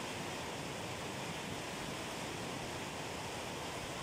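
Steady rushing of a fast, shallow mountain river running over rocks and rapids.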